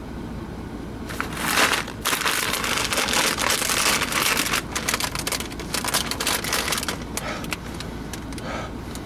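Crisp packet crinkling and crackling as it is handled, starting about a second and a half in and easing off near the end.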